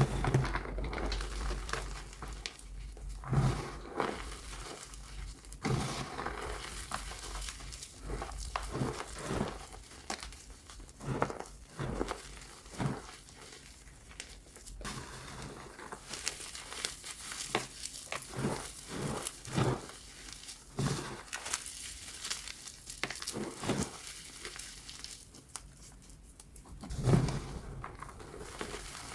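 BSN gym chalk coated in baby powder being crushed, giving irregular crunches and crackles with a few sharper cracks, the loudest near the end.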